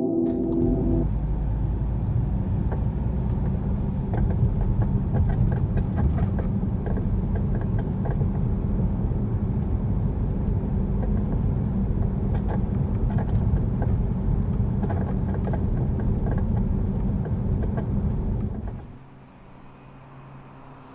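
A car driving: steady road and engine rumble with scattered light knocks. It stops about 19 seconds in, leaving a faint low hum.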